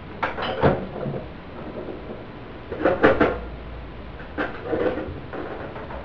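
A vintage GE F17W12 steel-blade box fan runs with a steady airy hiss. Three bursts of sharp clattering knocks break in over it, just after the start, about three seconds in and about a second later.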